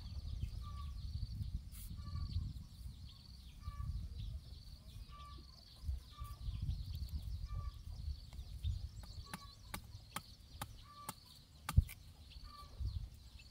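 Outdoor rural ambience: wind rumble on the microphone under short high chirps repeating about once a second. Several sharp knocks from hand-tool work in the second half, the loudest near the end.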